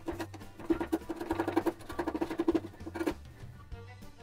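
Wood chisel paring and scraping the edge of a plywood sheet in quick short strokes, stopping about three seconds in, over background music.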